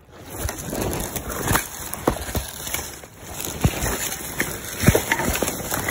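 Footsteps crunching and crashing through dry leaf litter and underbrush, with rustling and irregular knocks against the microphone, starting suddenly.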